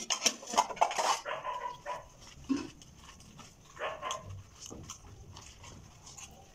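Steel cooking pots and utensils clinking and knocking together, in a quick cluster in the first second and then a few sparser clinks.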